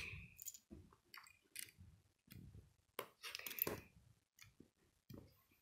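K'nex plastic pieces faintly clicking and rattling as they are handled and fitted together, in scattered short clicks with a busier patch about three to four seconds in.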